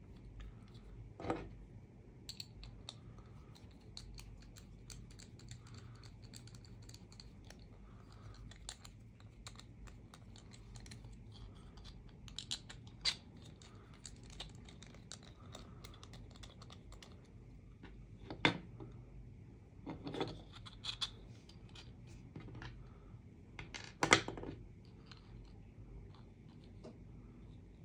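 Small clicks, taps and scratches of 3D-printed plastic parts being handled and screwed together with a precision screwdriver, with several sharper knocks scattered through, the loudest a little before the end.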